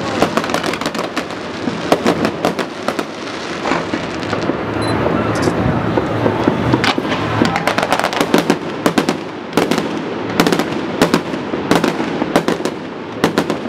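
Fireworks going off over water: a dense stream of crackles and bangs from shells and fountains, easing briefly about a third of the way in, then a run of sharper, separate bangs through the second half.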